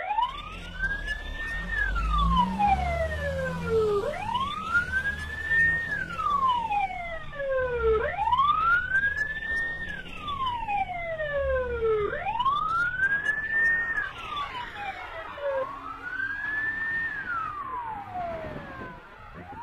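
Police car siren in a slow wail, its pitch rising for about two seconds and falling for about two, repeating about every four seconds, with a low rumble underneath at times.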